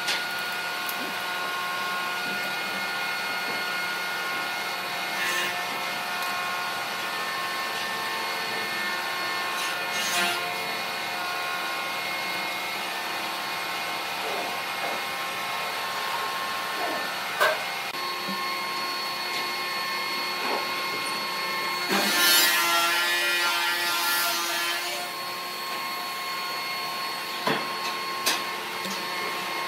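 A steel ruler and pen knocking and scraping on a block of wood during marking out, with a few sharp taps and a longer rasping scrape about three quarters of the way through. A steady machine hum runs underneath.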